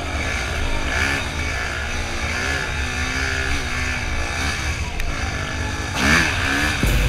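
Yamaha YZ250F four-stroke single-cylinder dirt bike engine being ridden hard, its revs rising and falling with the throttle and gear changes. The revs climb sharply about six seconds in.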